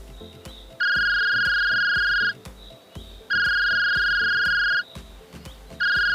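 A loud electronic beep sounding three times, each long and even in pitch, about a second and a half long and spaced about a second apart, over background music with a steady beat.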